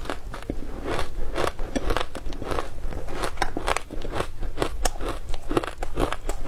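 A person biting and chewing frozen matcha ice, giving a close, rapid run of sharp, irregular crunches.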